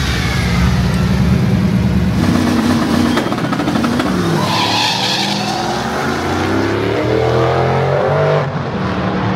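A car engine revving hard, its note climbing over several seconds and then dropping off sharply about eight and a half seconds in, with tyres squealing.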